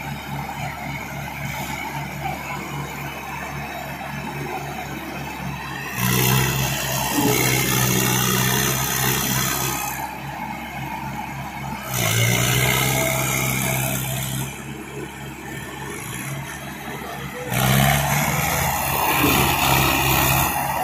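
Arjun tractor's diesel engine running with a steady low pulsing beat, then revved up three times: about six seconds in, about twelve seconds in, and near the end, each time for a few seconds.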